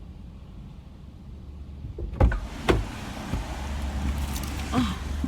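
A car door opens about two seconds in, letting in a steady hiss from outside, with two sharp knocks soon after and some rustling as someone gets in. Right at the end the door shuts with a loud thump.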